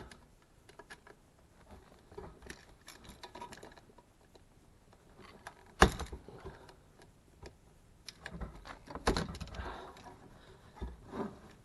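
Scattered clicks, taps and knocks of hand work on a car's plastic clutch hydraulic pipe and its fittings, with a sharper knock about six seconds in and a busier run of knocks near the end.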